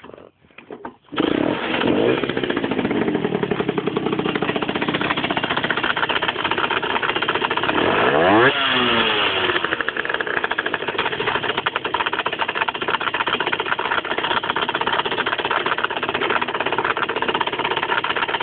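50cc motorcycle engine starting about a second in, then running at idle with a fast, even pulsing, briefly revved up and back down about halfway through. This is the odd idle noise the owner reports, which appeared after he replaced the crankshaft and clutch.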